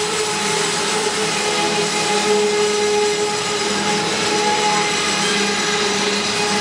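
Double-stack intermodal well cars rolling past close by: steady rumble and grind of steel wheels on the rail, with a steady whine from the wheels running through it.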